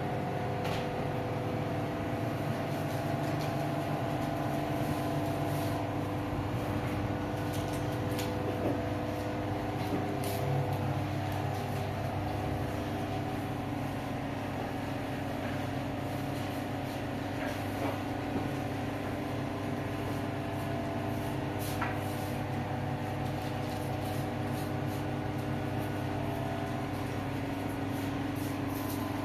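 A steady machine hum with a low rumble underneath, and a few light clicks and knocks.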